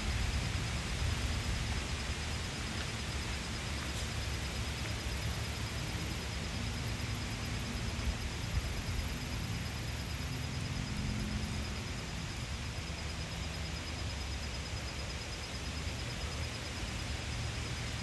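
Wind blowing over a pond: a steady rushing noise with a fluctuating low rumble.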